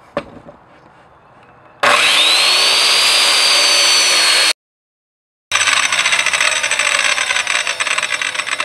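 Corded circular saw switched on, its motor whine rising to full speed and holding, then cut off sharply. After a short silence the saw runs again with a rougher, fluttering sound and a slowly sagging pitch as the blade cuts through the board.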